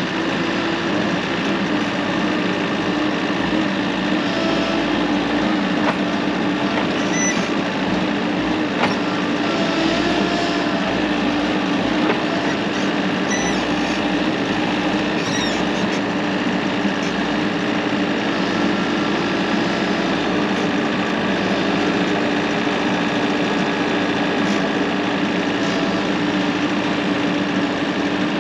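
Bobcat Toolcat's diesel engine running steadily while it works a toothed stump bucket down into the ground to dig a post hole.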